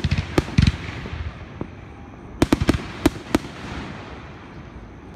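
Aerial firework shells bursting in sharp bangs. There are three in the first second, a quick run of about five between two and a half and three and a half seconds in, and another right at the end.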